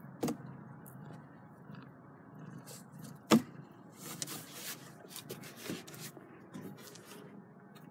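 Close knocks and rustling: a sharp knock just after the start and a much louder one a little over three seconds in, then scattered rustling, scraping and small clicks, as kittens move about against a cardboard box and the phone.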